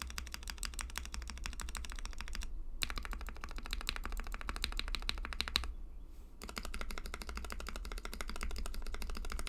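Rapid typing on a Tofu 65 acrylic custom mechanical keyboard with an aluminium plate, plate foam and lubed, filmed Gateron Milky Yellow linear switches, giving dense clacks that break off briefly twice. The lubed Durock V2 stabilizers may still give a slight rattle on a few modifier keys.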